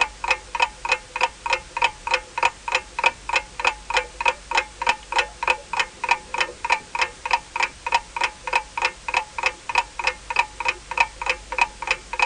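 Clock ticking steadily, about four sharp ticks a second, each with a brief metallic ring.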